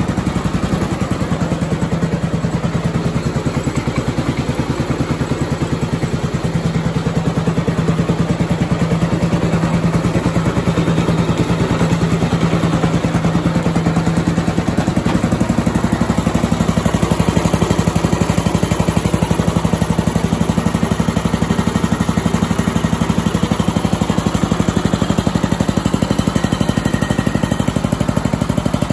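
Briggs and Stratton 5 hp single-cylinder horizontal-shaft engine running steadily, belt-driving a Craftsman riding mower on a test drive. Its low note shifts about halfway through.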